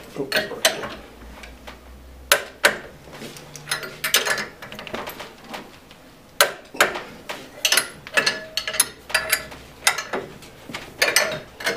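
Wrenches working the nuts on a gasketed steel pipe flange: irregular metallic ratchet clicks and tool clinks as the flange bolts are tightened around in turn.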